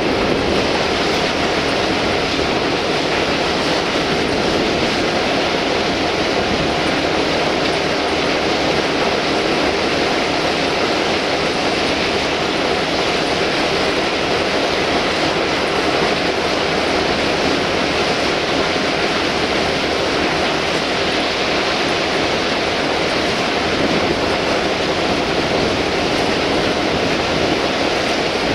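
Crushed rock pouring steadily from a loading conveyor chute into an open steel freight wagon, a continuous rushing noise with the conveyor running.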